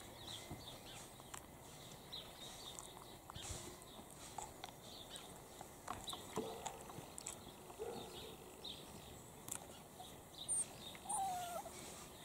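Faint outdoor ambience: scattered soft rustles and small clicks from Italian greyhound puppies shifting on blankets in a plastic laundry basket, with a few short high bird chirps near the end.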